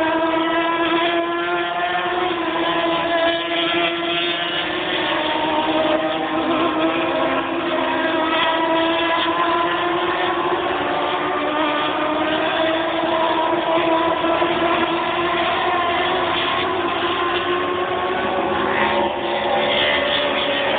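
Superstock racing motorcycles running at high revs on the circuit, a continuous engine note that slowly rises and falls in pitch as the bikes lap.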